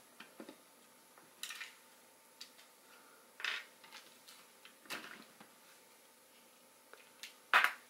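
Plastic parts of a LEGO Voltron model clicking and rattling as its lion limbs are handled, pulled off and fitted back on. The sounds come as scattered short clicks and brief rattles, with the loudest near the end.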